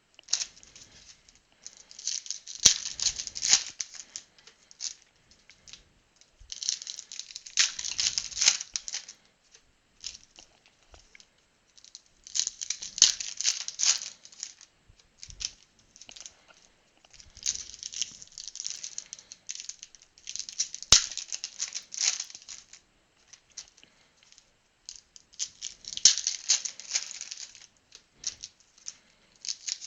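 Plastic and foil wrapping of trading card packs and boxes being torn and crinkled by hand, in repeated bursts of a second or two, several seconds apart, with a few sharp clicks between them.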